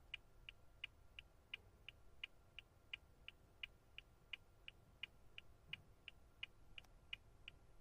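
Car turn-signal indicator clicking, faint and perfectly even, about three clicks a second: the flasher's on-and-off ticks.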